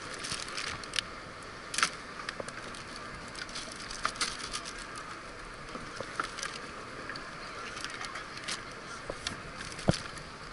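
Irregular sharp clicks and small knocks from hands working at a plastic cooler, over a steady hiss. One louder click comes near the end.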